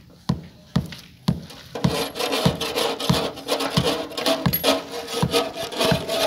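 Hand-cutting of a sheet-metal exhaust-fan housing: rhythmic rasping strokes, roughly two a second. From about two seconds in they become a continuous scraping with the thin metal ringing.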